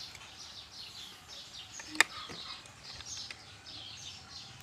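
Small birds chirping steadily, many quick falling chirps, with a single sharp click of metal tongs about two seconds in.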